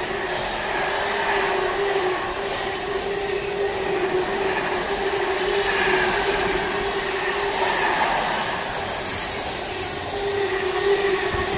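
Container flat wagons of an intermodal freight train rolling past at speed: a steady rumble of wheels on rail with a constant whine running over it.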